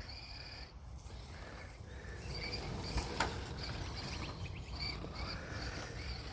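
Outdoor ambience: faint, short high chirps from wildlife repeat over a low rumble, with two quick clicks about three seconds in.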